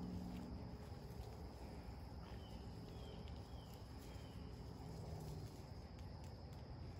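Steady high drone of insects, with a few short bird chirps a couple of seconds in and a faint low hum underneath.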